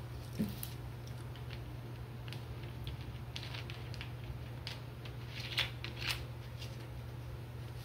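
Plastic soda bottle being handled and its screw cap twisted back on: scattered small plastic crackles and clicks, with a soft knock about half a second in and the loudest clicks a little after five seconds, over a steady low hum.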